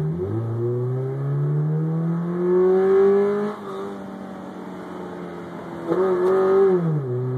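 Subaru Legacy engine with its whole intake removed, nothing ahead of the throttle plate, accelerating hard under load, its open induction roar loud. The engine note rises in pitch for about three and a half seconds, dips and holds, swells again about six seconds in, then falls away near the end.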